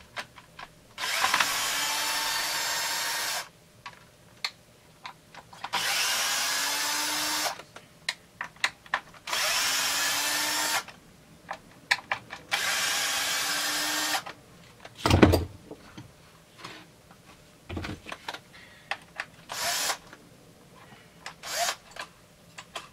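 Cordless drill-driver backing the screws out of a Husqvarna 350 chainsaw's starter cover: four runs of a couple of seconds each, the motor whine rising slightly in each run. Then comes a loud thump, a smaller knock, and two short bursts of the driver near the end.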